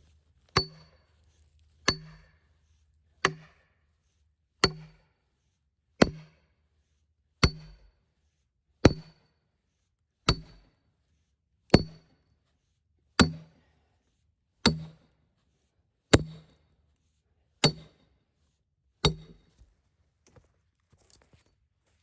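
Heavy hammer striking a steel wedge fourteen times, one steady blow about every second and a half, each a sharp metallic clink with a short ring, driving the wedge in to split a cedar log along its grain into rails.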